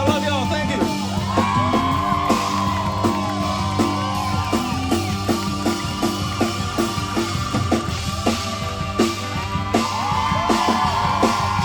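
Live country band playing an instrumental break: a lead guitar line of held, bending notes over bass and a steady drum kit, recorded from within the audience.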